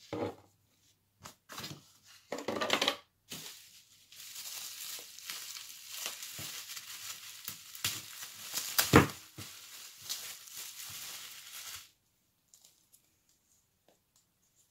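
Plastic bubble wrap crinkling and crackling in the hands as it is unwrapped from a product: a few short rustles at first, then about eight seconds of steady crinkling with sharp snaps, the loudest about nine seconds in.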